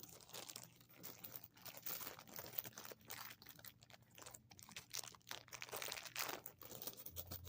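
Candy wrapper crinkling and rustling in irregular handling as a giant chewy candy is worked out of its packaging.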